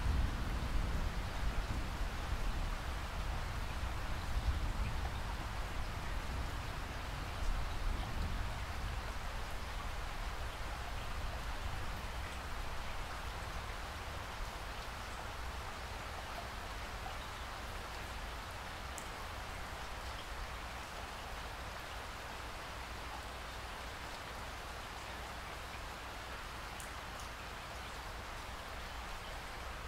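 Steady rain falling, with a low rumble of thunder dying away over the first several seconds.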